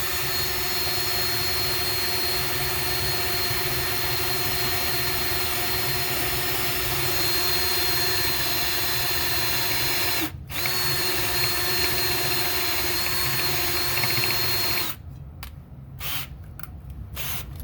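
Handheld electric drill running at a steady speed, boring a hole through the center of a metal nonstick frying pan. It stops briefly about ten seconds in, starts again, and stops about three seconds before the end, followed by a few light clicks.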